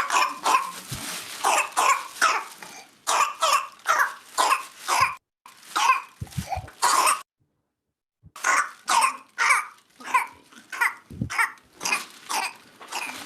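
Child with pertussis (whooping cough) in a coughing paroxysm: rapid short coughs one after another, about two a second, in two unbroken runs with a pause of about a second between them, the continuous coughing typical of whooping cough.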